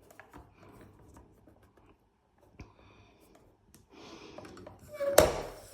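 Faint clicks and handling of paper and tools, then a light scraping stroke about four seconds in that ends in a sharp click near the end, as a line is scored down the middle of a paper strip.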